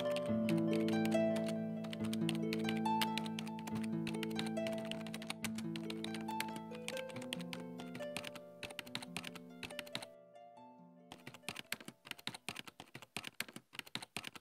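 A rapid run of keyboard typing clicks over the music's outro. The outro's held notes fade away over the first ten seconds or so, then the clicks carry on alone and stop abruptly.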